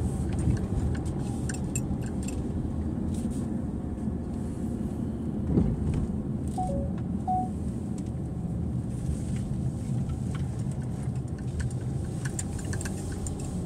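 Steady engine and road rumble heard inside a car's cabin while driving, with scattered light clicks and rattles and one sharper knock midway.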